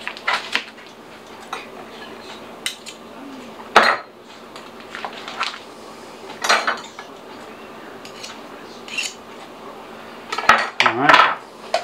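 A table knife clinking and scraping against a plate while butter is spread onto a baked potato. The sharp clicks come at scattered intervals, with one louder knock about four seconds in and a quick clatter near the end.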